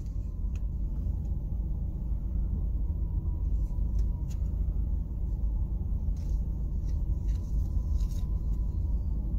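Car cabin noise while rolling slowly: a steady low rumble of engine and tyres, with a few faint clicks.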